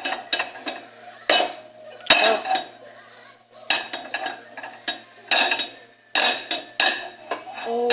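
A frying pan and metal kitchen utensils being handled and set down: about eight separate clanks and clinks, each with a short metallic ring.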